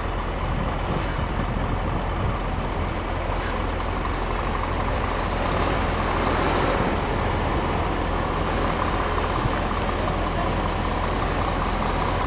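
Scania truck under way, its engine and road noise running steadily; the sound swells slightly about six seconds in.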